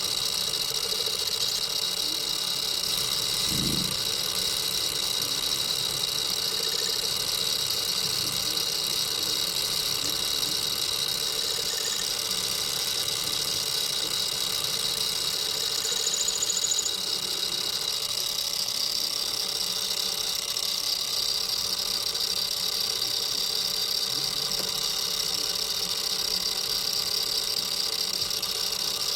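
Metalworking machine tool running steadily with a high-pitched whine, and a brief low thump about three and a half seconds in.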